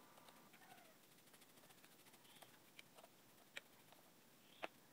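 Near silence: room tone with a few faint clicks in the second half and a couple of faint short chirping sounds.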